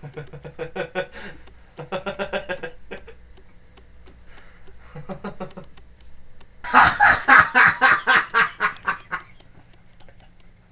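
A person's voice making rapid, pulsing cackling sounds: three short bursts, then a louder, longer run about seven seconds in.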